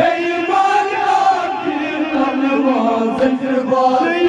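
Men's voices chanting a Kashmiri noha, a Shia lament, together through hand-held microphones, in long drawn-out sung lines.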